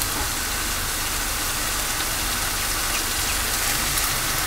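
Onion-tomato masala sizzling steadily in oil in a pan. Its water has cooked off, and the masala is now frying in the added oil.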